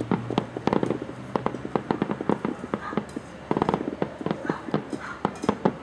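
Aerial fireworks crackling: a rapid, irregular run of sharp pops, several a second, that thins out briefly a little past halfway and then picks up again.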